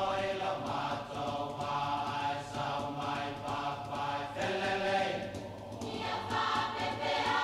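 Soundtrack music: a choir singing slow, sustained chords, the voices holding each chord for a second or two before moving on.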